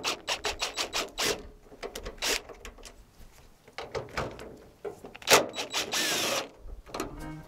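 Cordless drill/driver at the screws of a van sliding-door latch mechanism: a series of irregular clicks and knocks of the bit and metal parts, with the drill running briefly about six seconds in.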